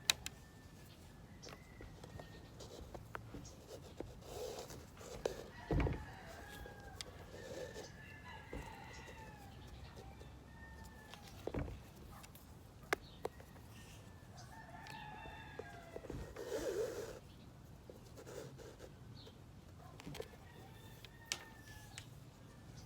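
Chickens calling in the background, with a rooster crowing in long arching calls twice and clucks between them. A few sharp clicks and a thump about six seconds in.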